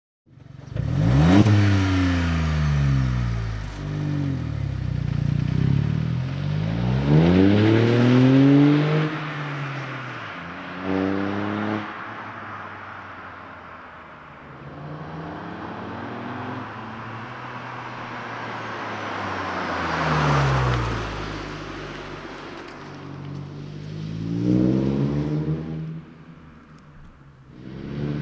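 Volkswagen up! TSI's turbocharged 1.0-litre three-cylinder engine, heard through a Milltek street exhaust, revving and accelerating. The pitch climbs and drops again and again. It is loudest in the first ten seconds, then swells again about twenty seconds in and once more near twenty-five seconds.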